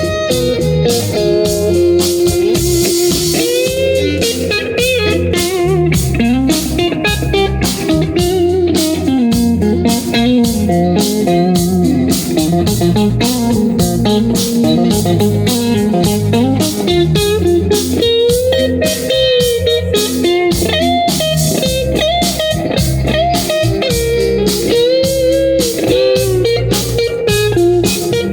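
Blues band playing an instrumental passage: an electric guitar solo with bent notes over bass and drums.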